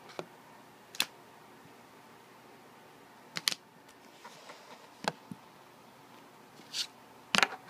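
Handling noise from plastic card holders: a few sharp clicks and taps a second or two apart, the loudest pair near the end.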